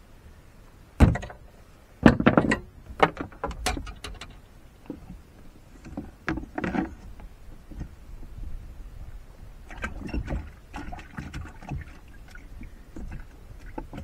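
Knocks and clatter of a landing net, a caught catfish and a plastic bucket with its lid being handled on a boat deck. A sharp knock comes about a second in, then a quick run of knocks, with scattered lighter clatter later.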